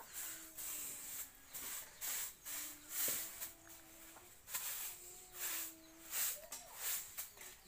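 Puppies whining faintly in drawn-out, slightly wavering tones, with soft scuffling and mouthing noises as they crowd around a hand.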